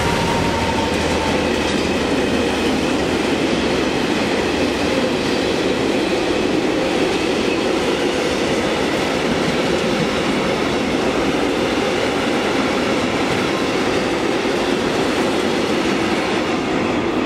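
Freight train of tank wagons rolling past at close range: a steady loud noise of steel wheels running on the rails. The MaK 6400 diesel locomotive's engine hum fades out in the first few seconds.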